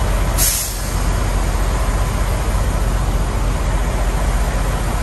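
Steady low rumble of idling semi trucks, with a brief sharp hiss about half a second in.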